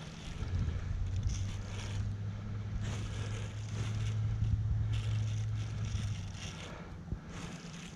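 A steady low hum that swells and then fades over about six seconds, with several bursts of rustling on top.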